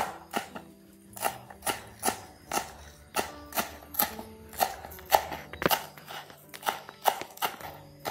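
Kitchen knife chopping on a cutting board: steady sharp knocks about two a second, with light background music underneath.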